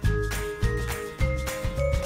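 Background music with a steady bass beat and a melody of held notes stepping upward.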